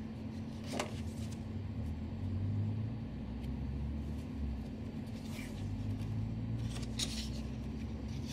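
Steady low hum with a low rumble that swells twice, and a few soft rustles of printed paper sheets being handled, one about a second in and two more near the end.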